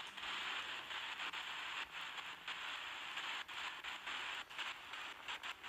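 Steady radio-like static hiss from a ghost-hunting device, cutting out briefly again and again, with scattered clicks.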